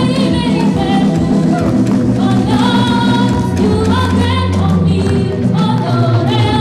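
Gospel praise song: a woman's lead voice singing into a microphone, joined by female backing singers, over steady instrumental accompaniment with a sustained bass.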